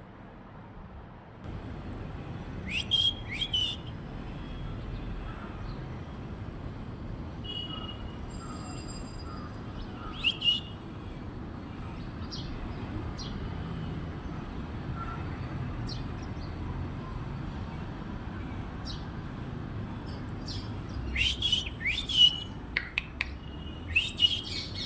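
Parrot giving short, shrill squawking calls. There are two near the start, one about ten seconds in, and a rapid flurry in the last few seconds, over steady background noise.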